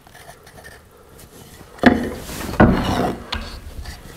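Wooden cleat being handled on a wooden workbench: a sharp knock about two seconds in, then a second knock followed by about a second of wood rubbing and scraping against wood.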